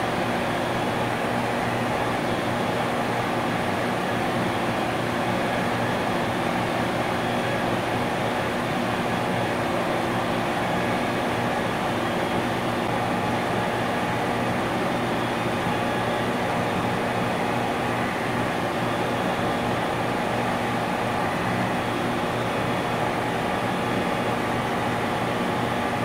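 Industrial compressor running steadily: an even hum with several held tones under a broad rushing noise.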